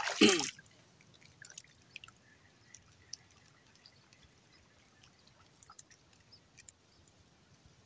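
A casting stroke with a spinning rod and reel: a brief loud swish at the start as the line pays out, then mostly quiet with scattered faint ticks and small water drips.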